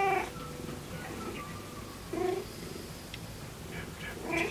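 Cat meowing three times in short calls: one at the start, one about two seconds in, and one near the end.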